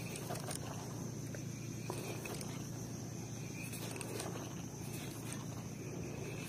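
Small spinning reel, a Ryobi Smurf 1000, being cranked through a lure retrieve: a quiet steady hiss with soft, scattered clicks.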